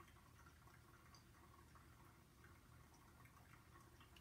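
Faint, thin stream of hot water pouring from a gooseneck kettle onto the coffee grounds in a Hario V60 pour-over dripper, with soft dripping; very quiet overall.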